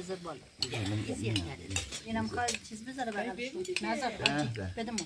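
Metal spoons and serving utensils clinking and scraping on china plates as food is dished out, with a man's voice talking over them.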